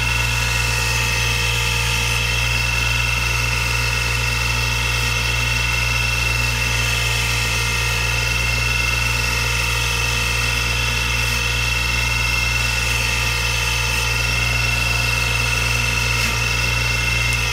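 Craftsman 6-inch bench grinder running at full speed with a steady hum and a high whine, a curved carving gouge held against its buffing wheel to hone the edge.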